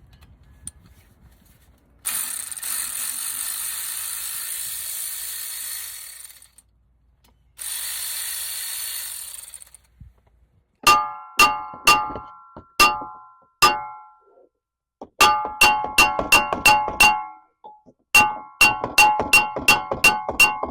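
Two long hisses of an aerosol spray, then metal being struck hard over and over, each blow ringing, in quick bursts of about four strikes a second.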